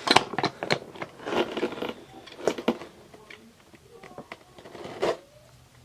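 Steel pliers from a new hand-tool set being handled: a scattered series of sharp clicks and knocks as the tools are moved and their jaws worked.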